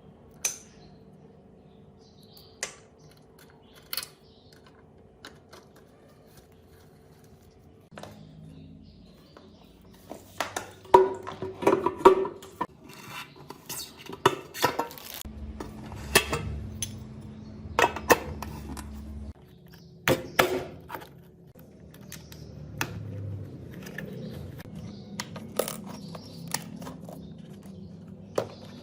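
Metal tools and motorcycle parts clinking and knocking together as they are handled, in scattered single hits and a quick cluster about ten seconds in. A low steady hum runs for about four seconds midway.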